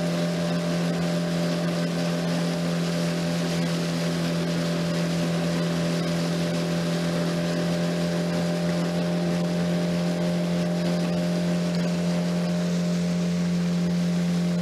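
Tiller-steered outboard motor on a small open fishing boat running at a steady cruising speed, heard from on board: one even, unchanging drone that holds its pitch throughout.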